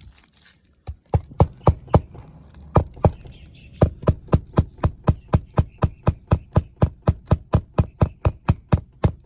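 Hammer driving roofing nails through an asphalt shingle by hand: a few separate taps, then a steady run of blows at about four a second.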